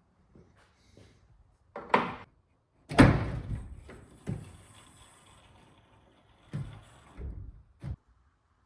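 Pickup tailgate being worked: a clunk about two seconds in, then a loud slam about three seconds in that fades out over a second or more, followed by several smaller clunks and knocks.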